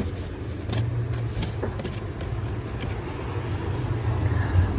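Light plastic clicks and knocks as the flap door on a car's cabin blower housing is handled. A steady low hum runs underneath.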